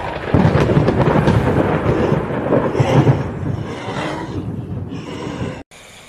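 Loud, rough rumbling horror sound effect that swells in at the start, fades slowly and cuts off abruptly near the end.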